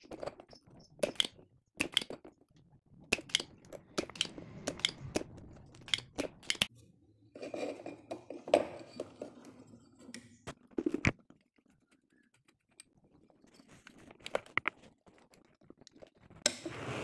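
Desoldering an amplifier IC from a circuit board: a string of sharp clicks and snaps from a spring-loaded desoldering pump and the board being handled, with short stretches of scraping and rustling between them.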